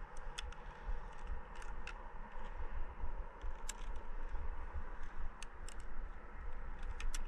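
Low steady rumble of wind on the microphone, with scattered light clicks and scrapes of gear being handled.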